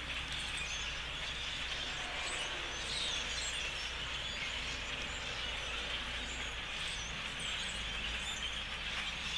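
A huge flock of birds calling all at once: a steady, dense chatter, with single chirps and short whistles standing out above it.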